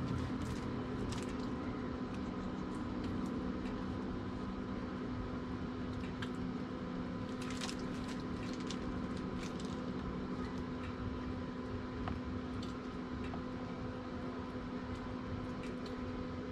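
Gloved hands handling wet raw salmon pieces: soft squishing with scattered light taps and clicks as the pieces are laid into a plastic container, over a steady low background hum.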